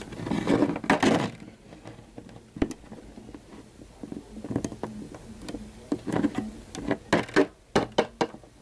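Handling noise from plastic Littlest Pet Shop figurines being moved by hand: irregular rustles, taps and small knocks, with a quick run of sharper clicks near the end.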